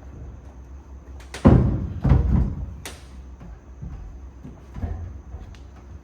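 Two heavy thumps about half a second apart, then a sharp knock about a second later, with fainter knocks after it.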